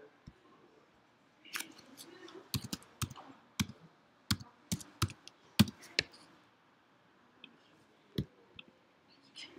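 Computer keyboard keys clicking as a word is typed: about a dozen sharp, uneven key strikes over some four seconds, then a single click a couple of seconds later.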